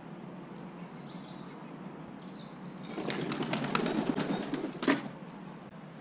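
A crow's wings flapping close by for about two seconds as it takes off. A run of sharp clicks and knocks comes with the flapping, the loudest just before it ends. Small birds chirp faintly beforehand.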